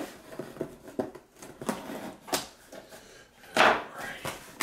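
Knife slitting the packing tape on a cardboard shipping box: scattered short scrapes and clicks, then one louder cardboard rasp about three and a half seconds in as the box flaps are worked open.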